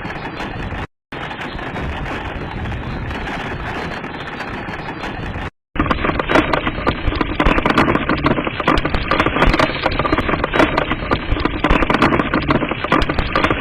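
Hailstones pelting hard surfaces in a dense, continuous rattle of many rapid impacts, broken by two brief cuts. It grows louder and heavier from about six seconds in.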